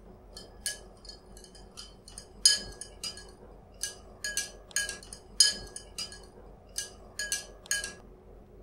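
Metal spoon clinking against a drinking glass while stirring salt into water to dissolve it: irregular ringing clinks, two or three a second, stopping shortly before the end.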